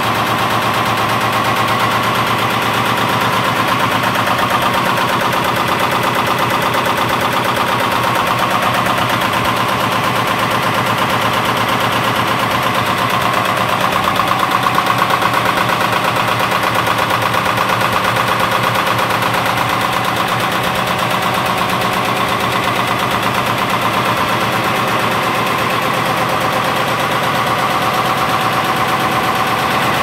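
Devson DHS-series 16-ton high-speed power press running continuously, its ram stamping metal strip fed into the die: a loud, rapid, even train of punching strokes.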